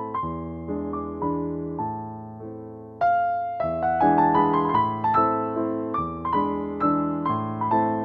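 Background piano music: slow, gentle chords and melody notes that ring and die away. A louder new phrase begins about three seconds in.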